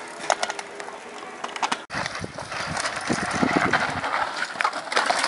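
Mountain bikes rolling over a loose dirt and gravel trail, the tyres crunching and the bikes rattling with scattered clicks. The sound cuts off for an instant about two seconds in.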